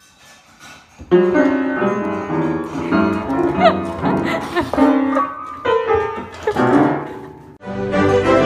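Upright piano keys pressed at random as a cat walks across the keyboard: loose clusters of unrelated notes, each left ringing. Near the end this cuts to continuous background music.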